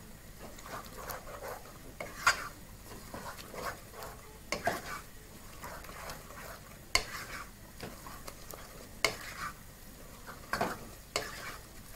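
Wooden spoon stirring a thick peanut sauce in a non-stick pot, with irregular scrapes and knocks against the pot's sides. Underneath, the sauce sizzles faintly on high heat.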